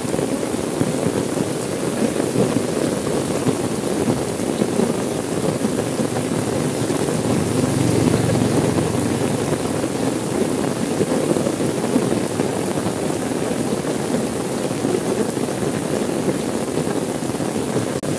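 Steady rain on a car window: an even, unbroken hiss with a low rumble beneath it.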